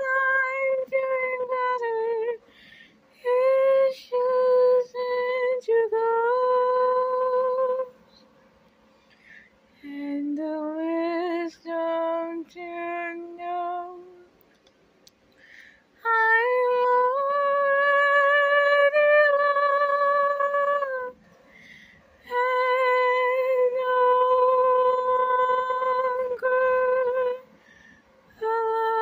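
A woman's voice singing a slow melody unaccompanied, holding long notes with short pauses between phrases. A quieter, lower phrase comes near the middle.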